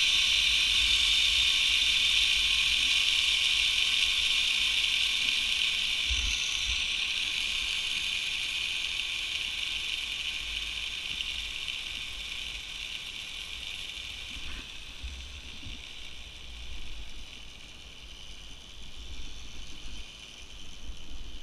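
Zipline trolley pulleys running along the steel cable, a steady high-pitched whir that slowly fades as the ride slows, with occasional wind thumps on the microphone.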